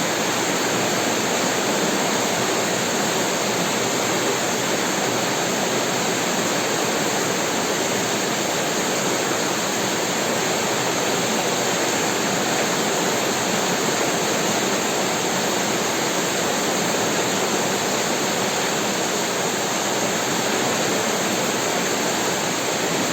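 Heavy rain falling steadily, an even hiss of water with no thunder.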